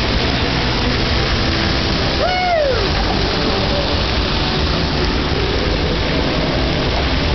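Plaza splash-pad fountain jets spraying water onto wet pavement, a steady rushing hiss. About two seconds in, a person's short high call holds and then falls in pitch.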